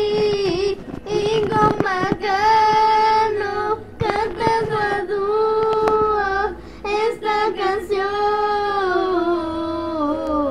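A young girl singing a slow melody in long held notes with short breaks between phrases, the last note sliding down in pitch near the end.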